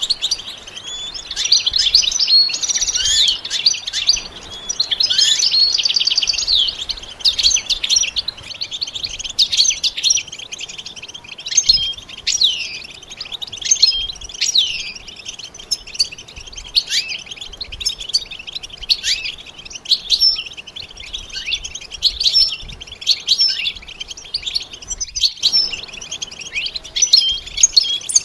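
European goldfinch singing: rapid twittering trills and sweeping chirps, densest in the first several seconds, then breaking into separate short chirps.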